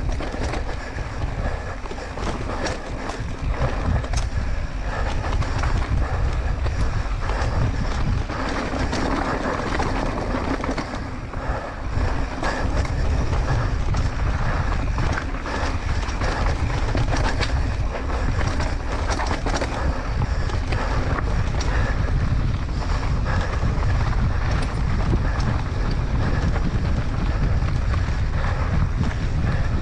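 Wind buffeting the microphone on a fast mountain-bike descent, with constant rattles and knocks of the bike and its tyres over rough trail.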